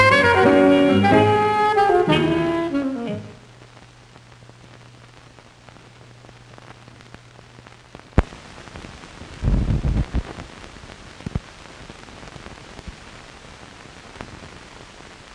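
Jazz music cue with saxophone, ending about three seconds in. After it comes a low, steady hiss with a sharp click and a brief low rumble.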